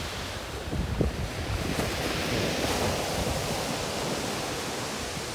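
Surf breaking and washing up a shingle beach, a steady rush of water that swells and then slowly eases, with wind rumbling on the microphone.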